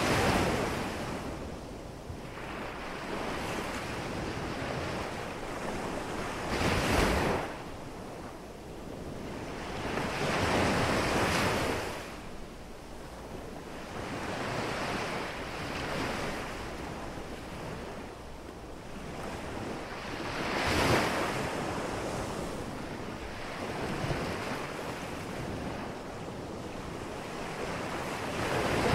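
Ocean surf breaking and washing ashore, the rush of water swelling and fading every few seconds, with some wind noise.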